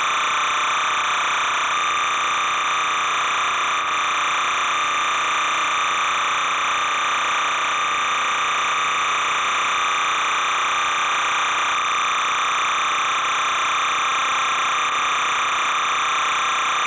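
Steady, unchanging electronic buzz and hiss with a strong mid-pitched hum band, the noise of an old videotape's audio track carrying no game sound.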